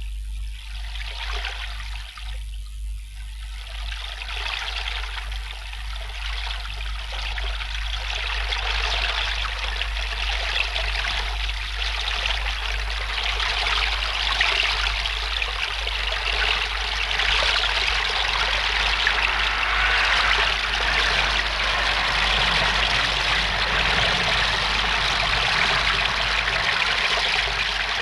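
River water rushing and splashing, building louder from about eight seconds in, over a steady low hum.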